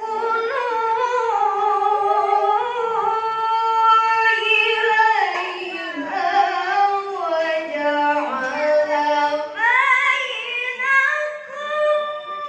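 A child's solo voice chanting Quranic verses in melodic recitation, holding long high notes with ornamented turns in pitch.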